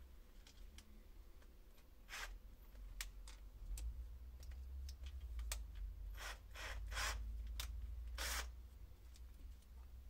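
Handling noise at a workbench: scattered light clicks and several short scrapes of small tools and parts, over a low steady hum.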